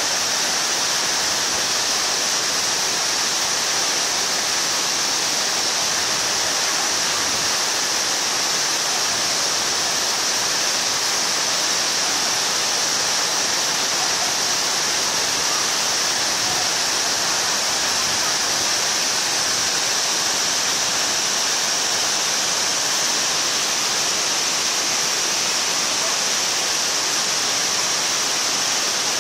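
Khlong Lan waterfall rushing, a steady loud hiss of falling water that does not change.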